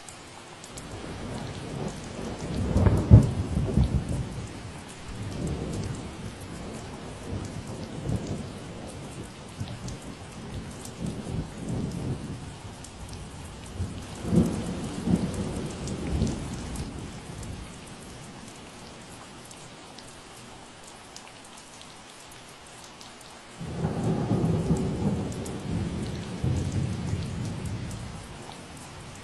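Steady rain falling, with rolling thunder: a loud rumble a few seconds in, another around the middle, and a third that starts suddenly past the two-thirds mark and rolls on for several seconds.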